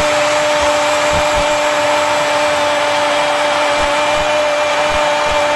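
Spanish-language TV football commentator's long goal call, a single "gol" held on one steady note without a break, over loud stadium crowd noise.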